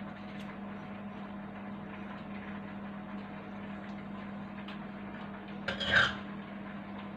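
Kitchen dishes being handled: faint small handling noises over a low steady hum, with one short clatter about six seconds in.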